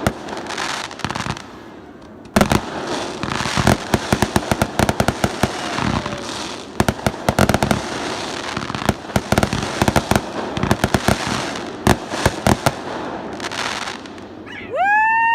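Fireworks going off: a couple of sharp bangs, then from about two seconds in a dense, continuous crackle of rapid pops with scattered louder reports. Near the end a whistling tone rises steeply and then holds.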